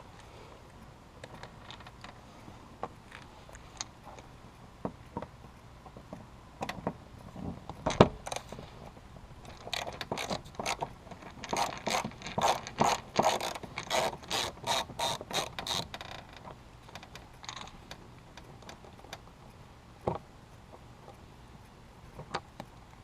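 Ratchet wrench clicking during hand-tool work: scattered clicks and knocks, a single loud knock about eight seconds in, then a dense run of rapid ratcheting clicks a few seconds later.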